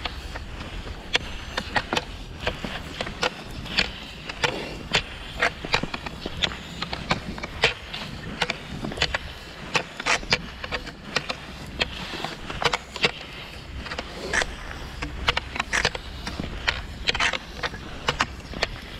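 Classic cross-country skis (Fischer Twin Skin) scraping and sliding over thin, trampled snow, with sharp clicks of the poles planting about twice a second in a steady striding rhythm.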